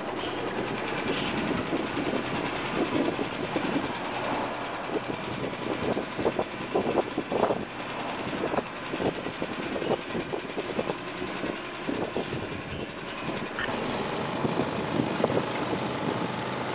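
The motor of a motorized canoe running steadily, with irregular knocks over it. About 14 seconds in the sound cuts abruptly to a brighter, hissier take of the motor running out on open water.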